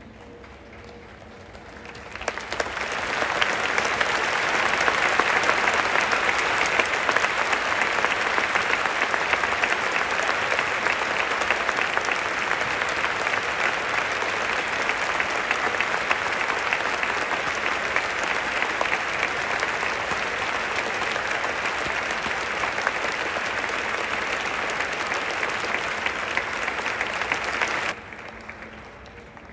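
A large stadium crowd clapping steadily, a dense even patter of many hands. It swells in about two seconds in and cuts off suddenly near the end.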